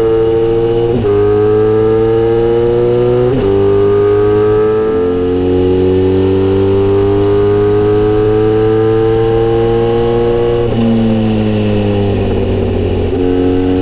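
Kawasaki Z900RS inline-four through a Misty Kintaro short-pipe exhaust, running under way. The engine note climbs slowly and drops suddenly several times, as at gear changes, and near the end it falls away before picking up again.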